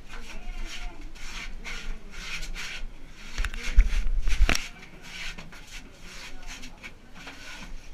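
People crawling through a narrow earthen tunnel: a run of short rubbing scrapes, a few per second, of clothing, hands and knees against the walls and floor. A loud muffled bump lasts about a second around the middle.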